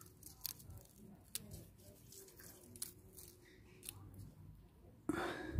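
Faint clicks and crackles as fingers pick small bulbils off the dry roots and papery skin at the base of an elephant garlic bulb. A louder burst of noise comes in near the end.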